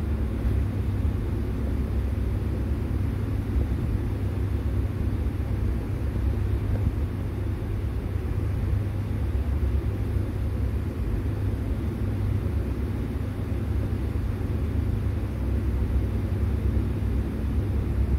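Kitten purring: a steady low rumble.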